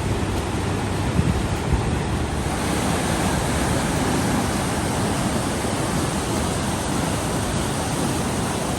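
Steady rush of the Katashina River's water falling at Fukiware Falls, a dense, even noise that turns brighter about two and a half seconds in.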